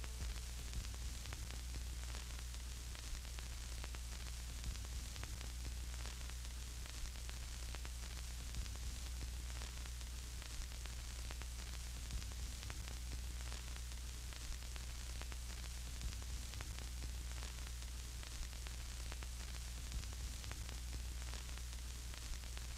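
Steady hiss with a low electrical hum beneath it and faint, scattered crackles.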